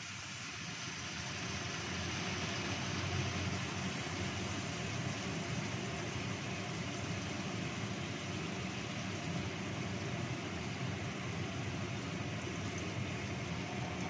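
Pigeons braising in spiced liquid in a wok over a gas burner, simmering with a steady hiss.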